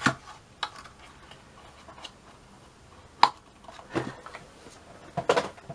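Scattered light clicks and taps, about half a dozen, as a metal camshaft front bearing and its small cardboard box are handled; the sharpest click comes a little past three seconds in.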